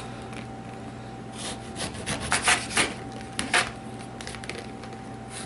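A small kitchen knife sawing through lemons to cut them in half: a run of short rasping strokes in the middle, with the blade scraping on the paper plate beneath.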